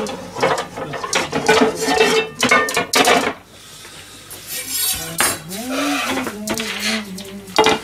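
Kitchen utensils and pots clattering and clinking in quick, irregular knocks for about the first three seconds, then a low voice humming a short tune.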